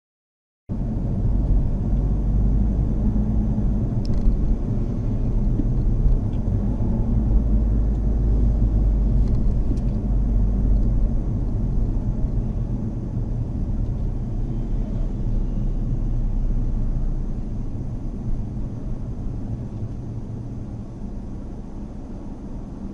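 Mazda Axela Sport being driven: a steady low rumble of engine and road noise that starts abruptly about a second in and eases slightly over the last few seconds.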